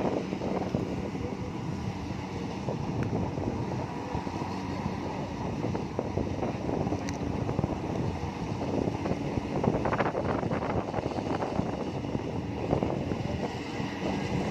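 Kubota rice combine harvester running steadily as it harvests, with a continuous engine and machinery noise.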